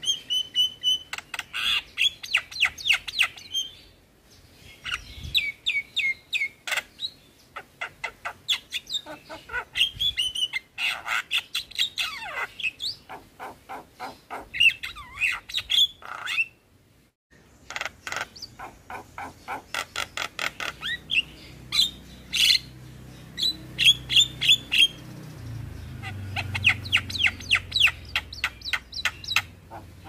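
Javan myna (jalak kebo) singing a long, fast chattering song of whistled notes, chirps and clicks, with a brief pause about halfway through.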